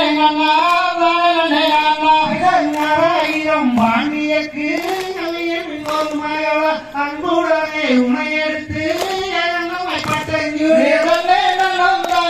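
A Valli Kummi folk song sung by one voice in long, wavering held notes, with the dancers' hand claps cutting in about once a second.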